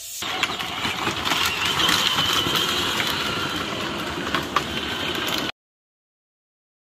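Small red ride-on toy car running along the road, with clattering plastic wheels. The sound cuts off abruptly about five and a half seconds in, leaving dead silence.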